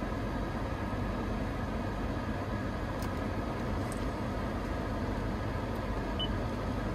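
Steady hum of the climate-control fan blowing and the running vehicle, heard inside the cabin of a 2019 Toyota RAV4, with a faint short beep about six seconds in.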